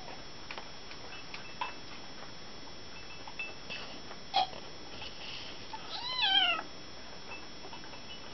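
Small kitten meowing: one high, thin mew that rises and then falls, about six seconds in. A short sharp sound comes a couple of seconds before it, with a few faint clicks earlier on.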